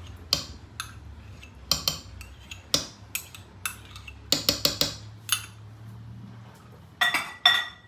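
Spatula scraping and knocking sour cream out of a measuring cup into a skillet of sauce: a series of separate clicks and taps of the utensil against the cup and the pan, with two louder clinks near the end.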